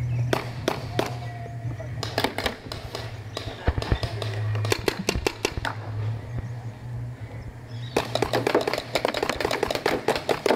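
Paintball markers firing: scattered shots about two seconds in, then a rapid, dense string of shots from about eight seconds on.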